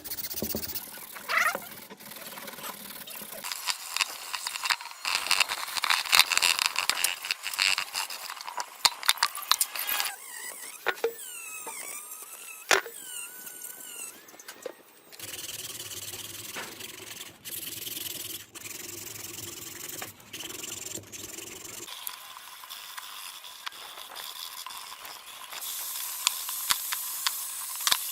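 Restoration work on metal machine parts: irregular scraping and rubbing with high squeaks, and a steadier hum for several seconds past the middle.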